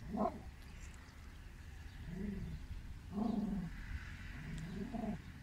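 A dog whining softly in four short calls, each rising and falling, a second or two apart.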